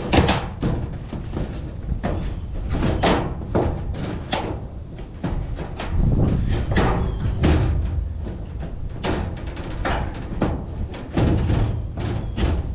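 Galvanized metal chimney flashing being fitted into a hole cut in a ribbed steel roof: repeated clanks, knocks and scraping of sheet metal against the roof panels.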